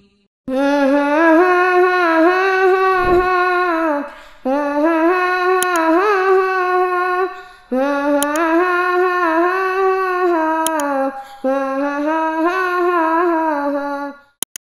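Wordless vocal humming of a melody in four long phrases, with held notes and small pitch turns and short breaks between phrases; a few faint clicks sound among them.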